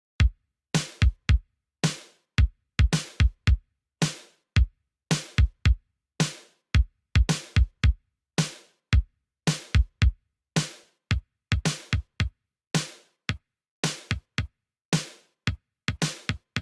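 Programmed synthwave drum-machine pattern built from vintage drum-machine samples, starting just after the opening. It plays dry, punchy kick, snare and hi-hat hits, several a second, each cut short with silence between them.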